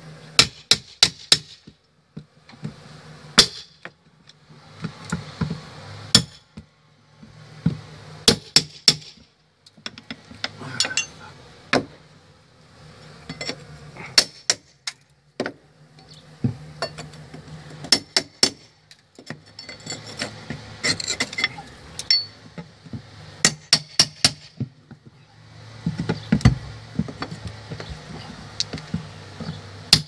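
Steel hammer striking a pry bar in quick clusters of three or four sharp metallic clinks, with short pauses between, as the bar is driven in to pry open the trim of a house's overhang. A low hum runs underneath at times.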